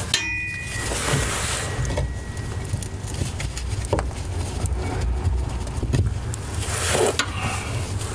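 Metal tool handling under a car: a sharp clink just after the start that rings briefly, then scattered small clicks and scrapes over a steady low rumble.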